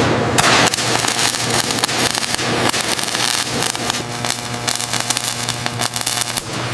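Dense, continuous crackling of many fine clicks over a steady low hum, with a few falling hissy sweeps.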